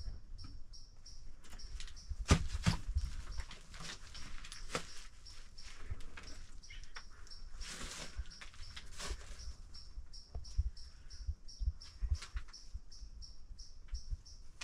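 An insect chirping steadily and faintly at about five pulses a second, over scattered knocks and low thumps of someone moving about, the loudest a sharp knock about two seconds in, and a brief rustle near eight seconds.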